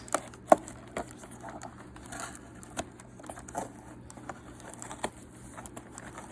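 Small packaging being handled and opened by hand: scattered light clicks and taps with some crinkling of a wrapper, one sharper click about half a second in.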